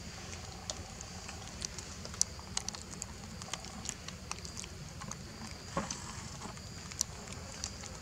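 Scattered soft clicks and crackles of a monkey handling and picking at grass leaves at close range, with a few sharper clicks, over a steady high-pitched insect buzz.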